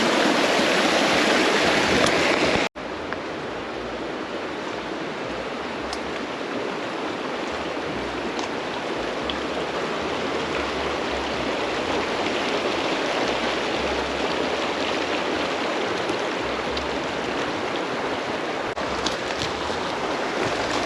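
Creek water rushing steadily over rocks. About three seconds in the sound cuts off abruptly and resumes as a slightly quieter, steady flow of running water.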